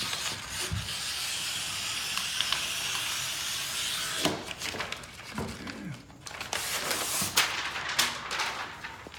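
Scissors cutting through a vinyl wall graphic: a steady hissing slide of the blades through the vinyl for about four seconds, then a run of sharp snips and crackles of the vinyl sheet.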